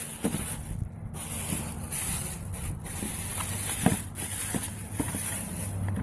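Plastic bag rustling and crinkling as it is handled right against the microphone, in an uneven hiss with a few light handling knocks.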